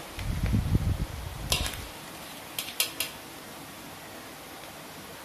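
A wire mesh strainer clatters and scrapes against a metal wok as fried beef lung is scooped out of hot oil. There are low bumps in the first two seconds, then three quick metallic taps around the three-second mark, over the steady faint sizzle of the frying oil.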